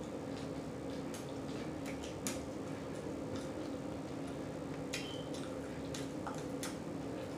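Wet chewing and lip-smacking from a person eating: scattered short clicks and squelches, one slightly louder about two seconds in, over a steady low hum.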